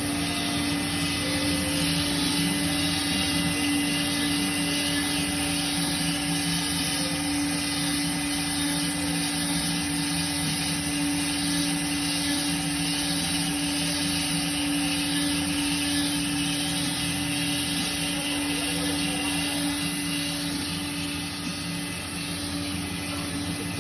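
CNC router running steadily: a constant machine hum with a few fixed tones over a noisy whir, unchanging throughout.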